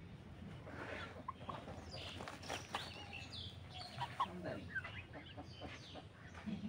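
Broiler chickens clucking in short, scattered calls that grow busier from about a second in.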